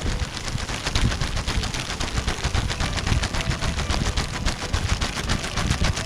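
Campfire crackling with dense, rapid pops and snaps over a low rumble.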